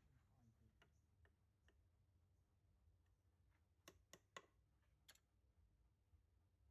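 Near silence with a handful of faint, sharp clicks: a few single ones about a second in, then a quick cluster of four or five about four seconds in.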